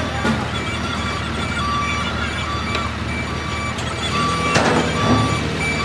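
Heavy vehicle's diesel engine running, with its reversing alarm sounding a regular series of short beeps that starts about a second and a half in.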